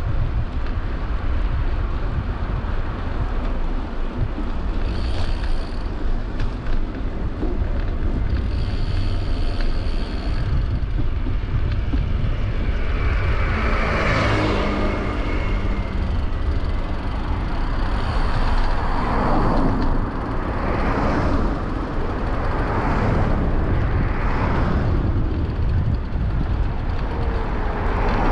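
Cars passing on a road heard from a moving bicycle, over a constant low wind rumble on the microphone. One vehicle passes close about halfway through, swelling and fading with a falling pitch, and several more pass one after another in the second half.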